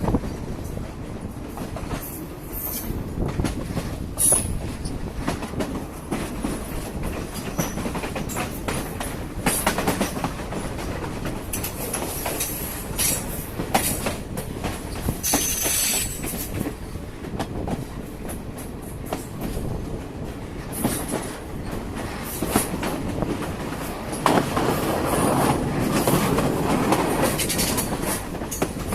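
Sri Lanka Railways Class S8 diesel multiple unit running along the line, its wheels clattering over the rail joints under a steady rumble. A brief high-pitched squeal comes about halfway through, and the rumble grows louder near the end.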